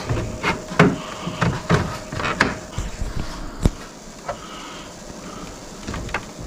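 A long rod poking in between the front fins of a 2017 BMW X5, ticking and scraping against the parts as it probes for the stuck passenger-side hood latch, with one sharp click a little past halfway.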